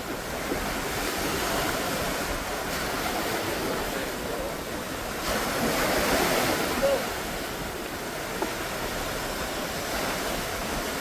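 Sea waves washing onto the shore in a steady rush of surf, swelling louder about halfway through.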